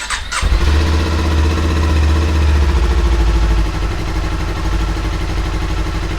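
Kawasaki Ninja 400's parallel-twin engine starting on a test run after an air filter change. It fires up about half a second in and then idles steadily.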